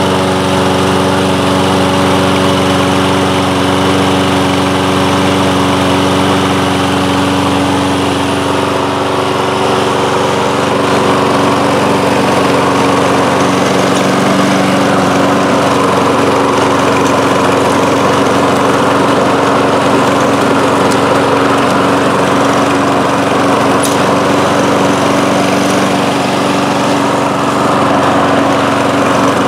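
Kohler engine of a Toro Recycler walk-behind lawn mower running at a steady speed with no surging or hunting, now that a replacement main jet is in its carburetor. The sound turns rougher about nine seconds in, as the mower is pushed across the grass.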